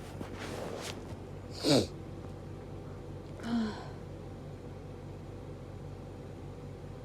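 A woman's hay fever sneeze about a second and a half in, after a short indrawn breath, its voice falling sharply in pitch. A shorter, quieter breathy sound follows about two seconds later.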